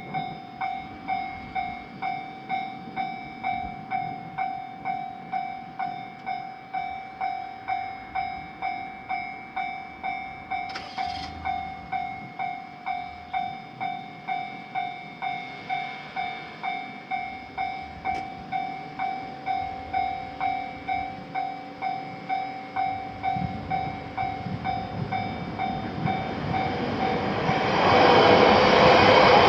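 Japanese railroad crossing warning alarm ringing a steady, evenly repeated ding about twice a second. A train comes up toward the end and passes loudly, nearly drowning out the alarm.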